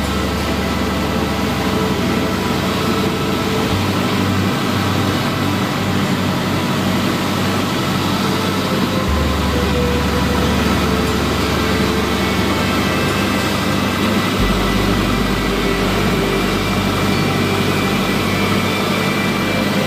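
Steady drone of a Luscombe 8E's engine and propeller heard in the cockpit, mixed with slow ambient music whose sustained low notes change about every five seconds.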